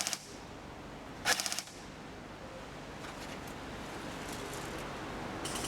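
Airsoft rifle firing short full-auto bursts, each a quick rattle of shots: one right at the start and a louder one about a second and a half in. Fainter bursts follow around three seconds, four and a half seconds and near the end.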